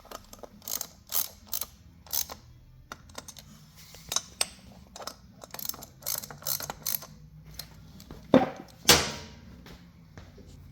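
Hand ratchet clicking in short strokes as the titanium brake-rotor bolts are snugged down, not yet torqued. Two louder knocks come near the end.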